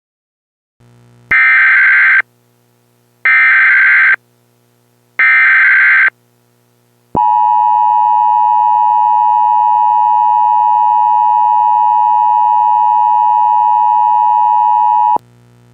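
Emergency Alert System signal: three short, loud, screechy data bursts of the SAME header, then the steady two-tone attention signal held for about eight seconds before cutting off sharply.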